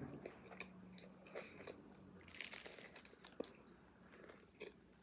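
Faint, close-up chewing and crunching of a banh mi, with small crackles from its dry, crusty baguette and a brief louder crunch a little past the middle.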